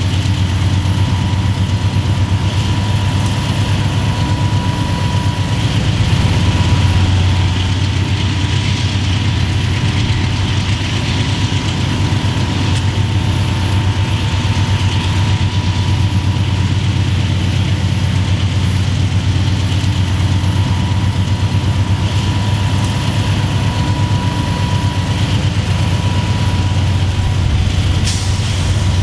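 Diesel freight locomotives running with a steady low engine rumble as a freight train rolls by, with a thin steady whine over it.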